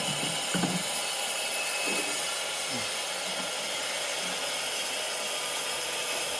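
Handheld power cutter running steadily with a high hissing grind, cutting pieces for the tiling work.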